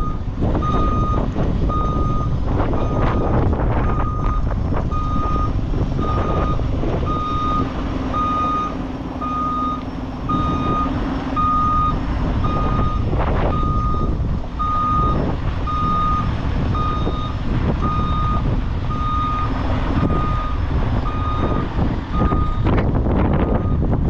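A truck's backup alarm beeping steadily about once a second while the truck reverses, over the low rumble of its engine running.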